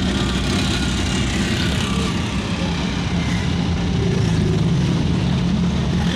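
Steady engine and road noise heard from inside a moving car.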